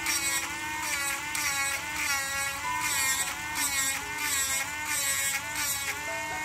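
Dremel 8050 cordless rotary tool running at speed, grinding a piece of wood. Its high whine dips in pitch and recovers about twice a second as the bit bites into the wood and eases off.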